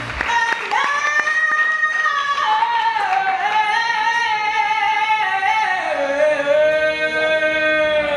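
A woman's solo singing voice in a live performance, holding long notes that slide between pitches, with little or no instrument behind it. The held note steps down lower about two-thirds of the way through.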